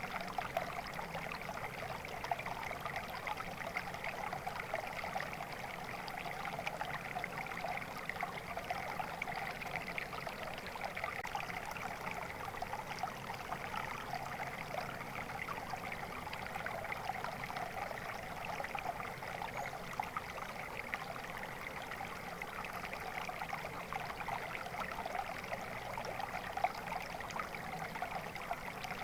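Water flowing steadily over a natural stream bed, a continuous trickling with no break or change.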